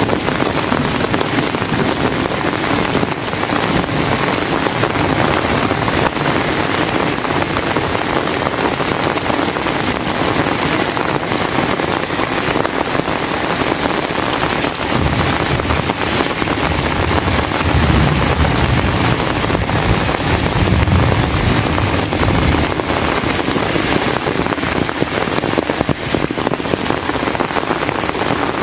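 Heavy rain pouring steadily. About halfway through, a low rumble swells for several seconds and fades, the roll of distant thunder.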